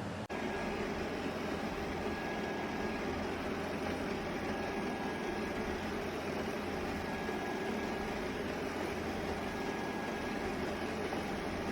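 Shark PowerDetect NeverTouch Pro robot vacuum running, a steady motor and suction hum with a faint high tone that comes and goes.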